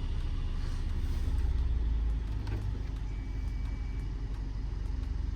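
Mercedes-Benz GLA180 engine idling with a steady low rumble, heard from the car just switched on. A faint thin high tone sounds for about a second midway.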